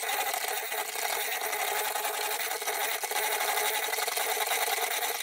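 Handheld electric mixer running steadily, its beaters creaming soft butter and sugar in a stainless steel bowl.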